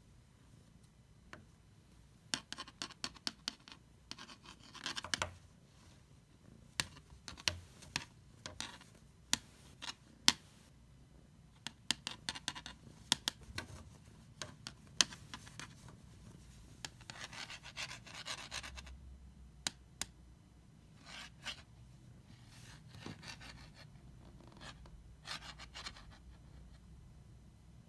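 A Sharpie marker batted about by a cat on a laminate floor: scattered sharp clicks and taps as it knocks and rolls on the boards, with a few short stretches of scratching.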